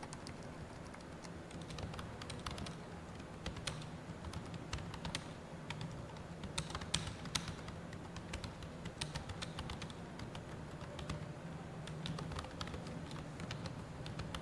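Computer keyboard being typed on at a steady pace: a rapid, irregular stream of key clicks over a low background hum.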